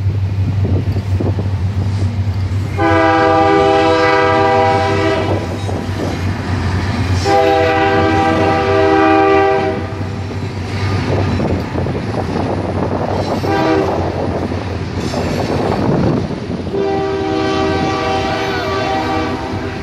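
Air horn of a Union Pacific diesel locomotive leading a freight train, sounded in four blasts (long, long, short, long), the standard grade-crossing signal. It plays over the steady low rumble of the diesel engines and the rolling freight cars.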